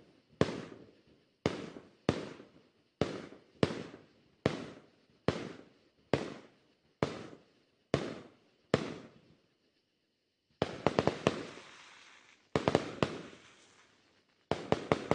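Fireworks show: about a dozen single booms at a steady pace of roughly one a second, each dying away in a rumbling echo. After a short pause come three quick volleys of several rapid cracks.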